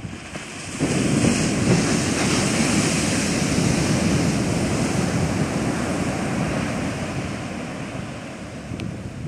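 Heavy shorebreak waves breaking and crashing into whitewater, a thick surf rush that swells about a second in and slowly fades near the end. Wind is buffeting the microphone.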